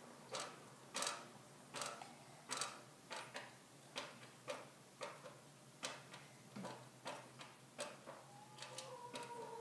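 Faint ticking in a quiet room, a little under one and a half ticks a second, fairly even. Near the end a soft steady tone joins it.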